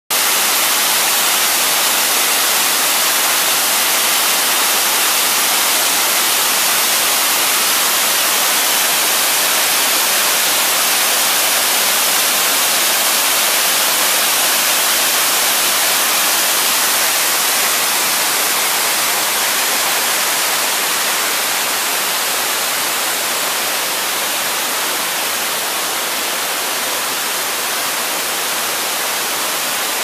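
Waterfall rushing down stepped rock ledges: a steady, dense hiss of falling water that eases a little about two-thirds of the way through.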